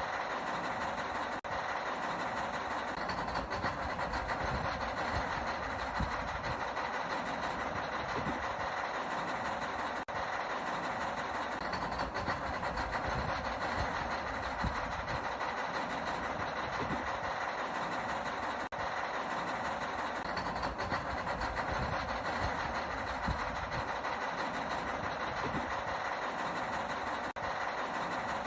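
Steady mechanical motor drone from toy construction machinery, running without let-up, with a brief drop about every eight or nine seconds.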